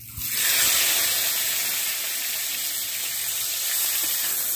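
Hot mustard oil sizzling hard in a kadai, with the cumin tempering in it. The sizzle surges up suddenly about a third of a second in, as something goes into the oil, and then holds steady.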